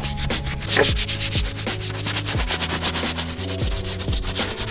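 Detailing brush scrubbing citrus-cleaner foam into a leather seat in rapid back-and-forth strokes, over background music with a bass-heavy beat.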